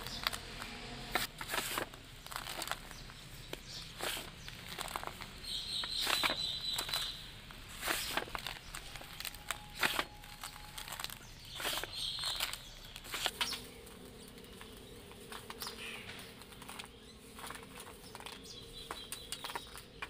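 Dry sand-cement powder trickling and pouring through fingers onto a metal plate, with gritty crumbling and soft pats as handfuls are scooped and dropped.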